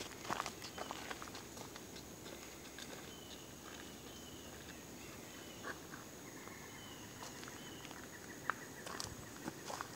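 Footsteps crunching and crackling in dry leaf litter on a forest trail, busiest in the first second and again near the end, with a quieter spell in between. Faint short high chirps sound a few times in the background.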